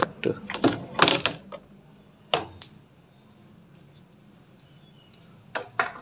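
Plastic knocks and clatter from a washing machine's control-panel housing being handled: a quick cluster of sharp knocks in the first second or so, one more a little after two seconds, then two close together near the end.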